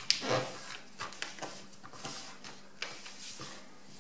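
A sheet of A4 paper being folded and creased by hand on a tabletop: short rustles and scrapes as fingers press and slide along the fold, the loudest about a third of a second in.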